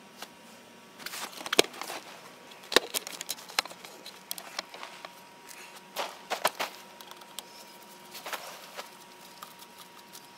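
Handling noise: scattered clicks, taps and rustles in four short clusters, with a faint steady high tone behind them.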